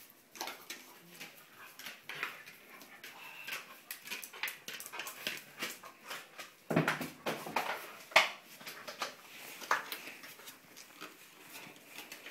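Dog whimpering in short, excited cries while playing, with several louder, sharper cries in the second half.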